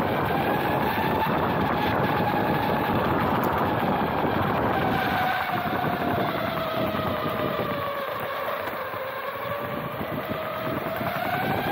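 Electric skateboard's dual rear motors whining while riding, the pitch dipping as the board slows about two-thirds through and rising again as it speeds up near the end. Underneath is a steady rumble of the airless TPU wheels rolling on pavement, with wind on the microphone.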